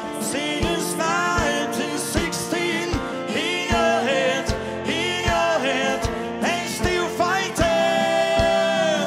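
A male lead singer with a deep, raspy voice sings a rock song live over a full band with a steady drumbeat. He holds one long note over the last second and a half.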